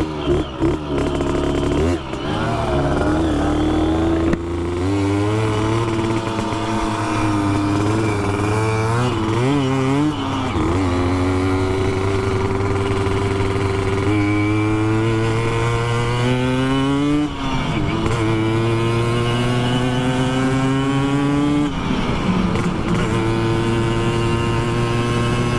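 Moped engine ridden hard at speed, its pitch climbing steadily and dropping sharply at gear shifts twice in the second half, with wind rushing past.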